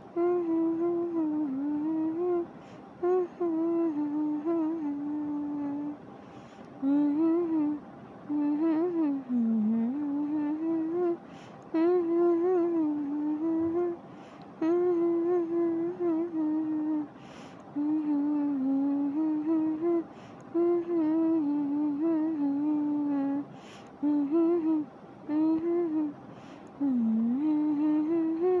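A voice humming a slow, wavering melody in phrases, with short pauses between phrases: the background soundtrack.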